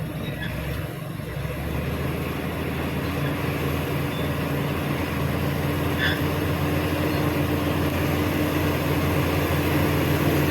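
Shantui SD16E bulldozer's diesel engine running steadily, slowly growing louder, with a brief high squeak about six seconds in.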